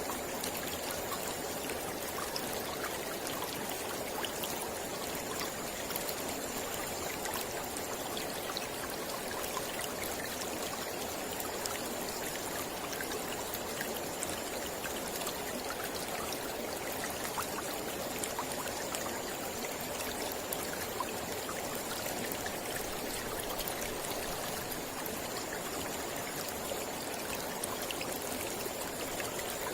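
Mountain river flowing: a steady rush of water with many small splashes, and a faint high thin tone that comes and goes every few seconds.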